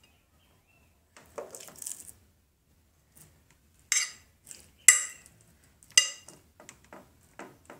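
Metal fork clinking against a glass Pyrex baking dish while chicken fillets are laid in it. A brief scraping rustle comes first, then several sharp, ringing clinks from about four seconds in.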